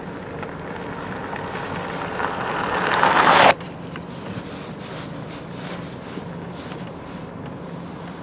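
Car driving slowly, heard from inside the cabin: steady road and engine noise with a low hum. A rushing noise swells over about two seconds and cuts off suddenly about three and a half seconds in.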